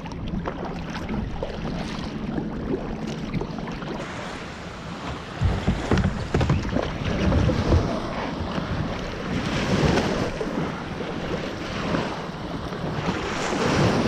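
Kayak paddle strokes splashing and slapping water beside the hull, with wind buffeting the microphone. There are louder surges a few times.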